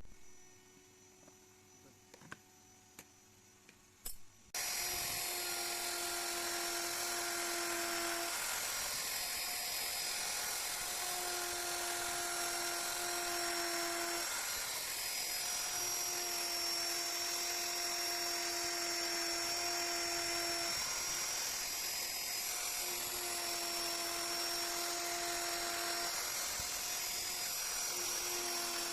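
High-speed handheld power tool carving wood, running with a steady high whine that starts suddenly about four and a half seconds in, after a few faint clicks. A lower hum in its sound comes and goes every few seconds as the cut changes.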